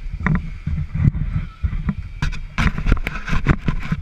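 Rumble and thumps of movement on a helmet-mounted action camera, with a cluster of sharp crackling noises in the second half.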